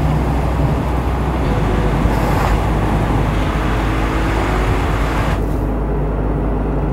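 Car driving at road speed, heard from inside the cabin: a steady low rumble of engine and tyre noise with a hiss over it. About five seconds in, the hiss drops away suddenly and a duller rumble continues.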